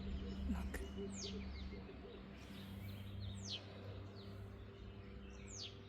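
A bird calling in the background: a few short, high chirps that slide downward in pitch, spaced a couple of seconds apart.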